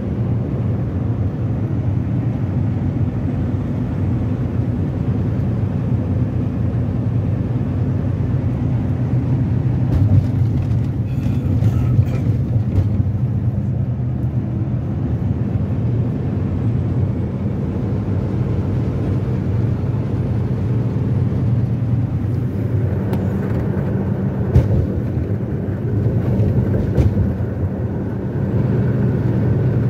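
A semi-truck cruising at freeway speed, heard from inside the cab: a steady low engine hum over road noise, with a few brief clicks along the way.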